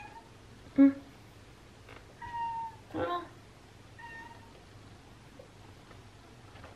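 Pet cat meowing in a few short calls, the loudest about a second in.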